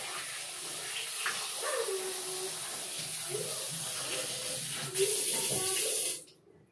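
Tap water running steadily into a bowl as raw chicken is washed by hand. The water gets louder about five seconds in and cuts off suddenly near the end.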